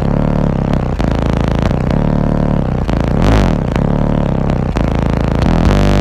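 Bass-heavy music played loud through five Resilient Sounds Platinum 12-inch car subwoofers, the deep bass notes dominating, with a bass note that glides down and back up about three seconds in.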